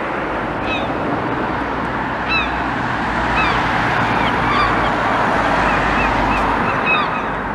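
Steady road traffic noise that swells through the middle, as a vehicle goes past, with short bird calls repeated many times over it.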